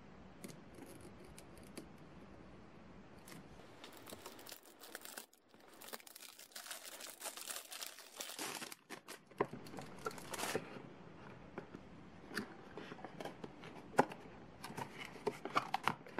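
Thin cellophane wrap crinkling and tearing as it is peeled off a cardboard box, densest from about four to nine seconds in, followed by scattered clicks and taps of the cardboard box being handled and its flaps opened.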